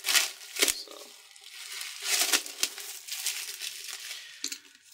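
Plastic wrapping crinkling in several irregular bursts while a pocket knife slits the seal on a cardboard box.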